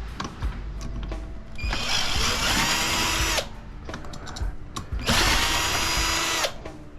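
Cordless drill-driver with a star (Torx) bit backing out screws: the motor runs twice for about a second and a half each, spinning up and winding down, with small clicks and knocks of handling between runs.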